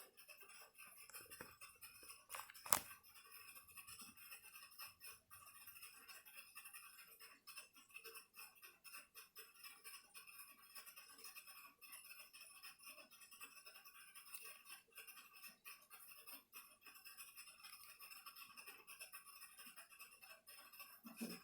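Faint, irregular small clicks and scrapes of hand tools working on a laptop's case and parts during disassembly, with one sharper click about three seconds in, over a faint steady hiss.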